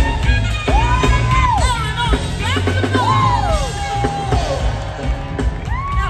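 Live band music with an alto saxophone playing long, held high notes that bend and fall away in pitch, over the rest of the band.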